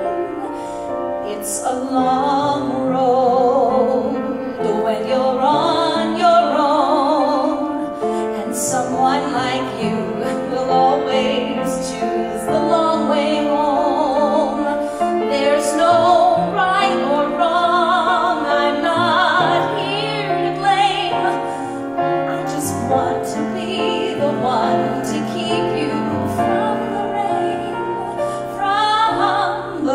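Woman singing solo with vibrato into a microphone, accompanied by piano.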